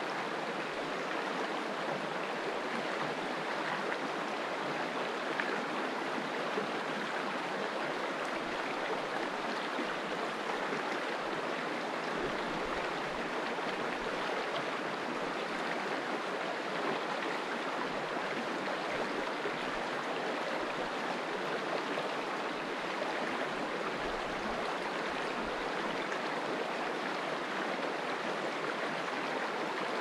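River water flowing steadily, an even, unbroken rush.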